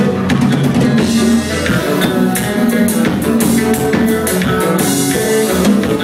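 Live band playing: a drum kit keeps a steady beat under guitar and other pitched instruments.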